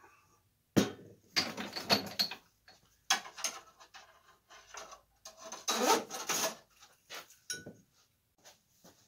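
Workbench handling noises: a sharp knock about a second in, then irregular bouts of scraping and rattling as tools and small lamp hardware are handled.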